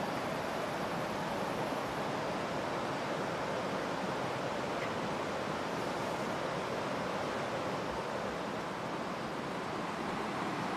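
Steady, even rushing noise with no pitch or rhythm.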